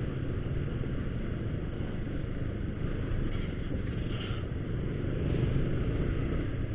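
Motorcycle engine running steadily at low riding speed, with road and wind noise, heard from on the bike.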